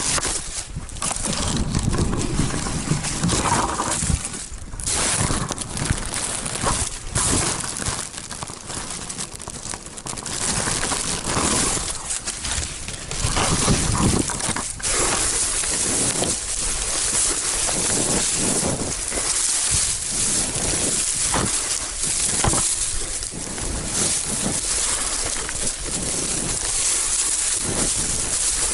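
Footsteps and rustling of a hiker climbing a steep rocky trail: irregular crunching steps, with a steady hiss that grows stronger about halfway through.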